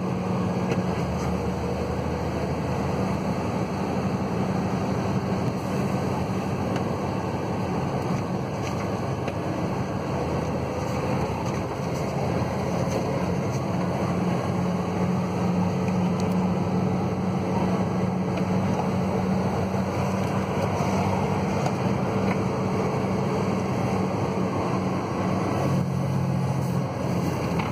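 Engine and road noise of a moving road vehicle heard from inside its cabin: a steady low drone with tyre rumble.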